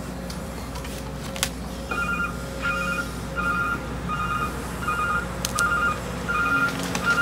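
Construction vehicle backup alarm beeping at a steady pace, a short two-pitch beep about every 0.7 seconds, starting about two seconds in. Underneath is the steady low running of a diesel engine.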